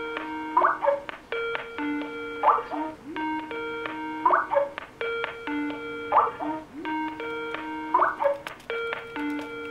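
Electronic ringtone: a short chiming pattern of steady tones with a quick rising flourish, repeating about every two seconds.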